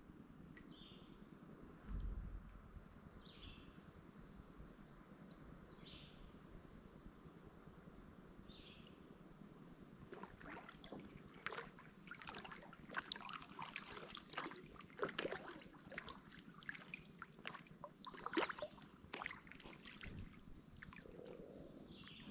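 Birds singing short whistled notes over a quiet river, with a dull thump about two seconds in. From about halfway, light irregular water splashes and drips take over.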